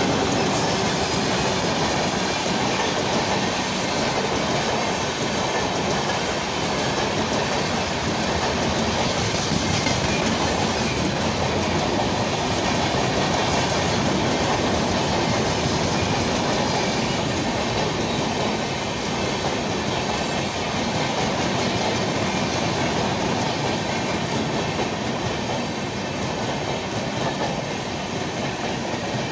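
Passenger coaches of an Indian Railways Rajdhani Express passing close by at speed: a steady, loud noise of wheels running on the rails as the rake streams past.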